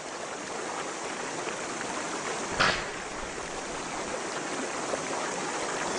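Muddy, fast-flowing river water rushing steadily around a swimming hippopotamus, with a brief splash about two and a half seconds in.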